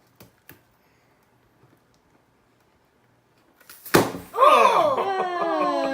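A glue-filled balloon bursts with a single sharp pop about four seconds in, followed at once by a long, excited 'ohh' from children's voices.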